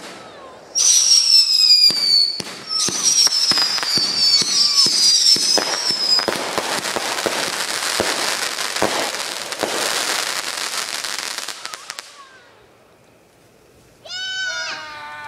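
Consumer fireworks going off: two loud whistling effects, each sliding slowly down in pitch, with sharp pops for about five seconds. Then dense crackling that stops about twelve seconds in.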